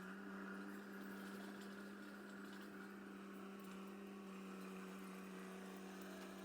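Faint, steady low hum with no other distinct sound.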